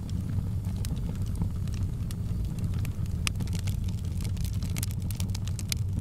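Wood logs burning in an open fireplace: a steady low rumble of flames with frequent sharp crackles and pops, one louder pop about three seconds in and a quick run of crackles near the end.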